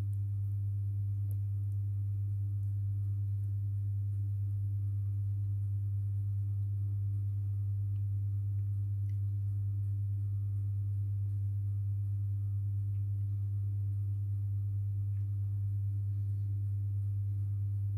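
Steady low electrical hum from a LiPo-battery-powered induction heater driving its copper work coil: one unbroken tone with faint higher overtones.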